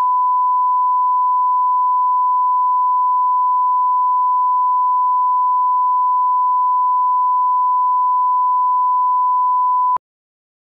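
Broadcast line-up reference tone: one steady, pure, unwavering beep played under colour bars at the head of a commercial master, cutting off suddenly about ten seconds in.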